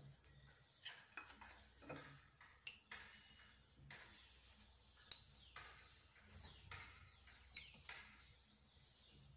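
Quiet, scattered clicks and taps of hands shaping semolina dough and handling small dishes on the counter. Faint bird chirps come in now and then, with a few quick falling chirps near the end.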